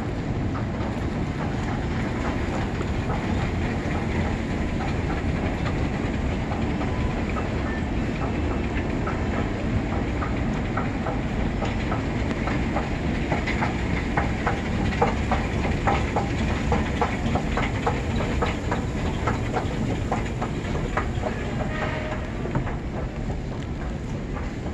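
Steady low rumble of escalator machinery and station ventilation in a large underground hall, with a run of regular clicks about twice a second through the middle.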